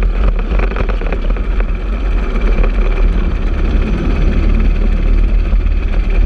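Racing kart's Briggs & Stratton LO206 single-cylinder four-stroke engine running steadily, picked up by the onboard camera with heavy low rumble.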